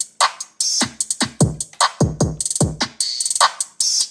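Hip-hop beat played loud through a JBL Extreme 2 and a JBL Charge 4 portable Bluetooth speaker side by side, at about 80% volume, as a bass test. Deep 808 bass kicks that drop in pitch land several times a second under fast hi-hats.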